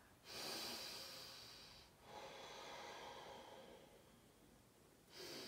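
Faint, slow breathing of a person holding a yoga lunge: a breath of about two seconds, a longer one of about three, and the next beginning near the end.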